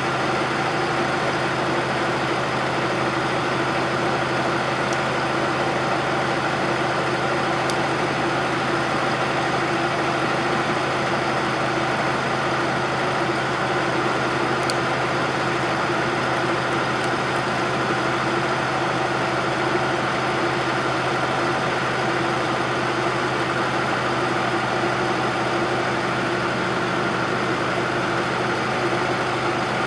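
Bobcat 610 skid-steer loader's Wisconsin gasoline engine running steadily at a constant speed, with no revving or change.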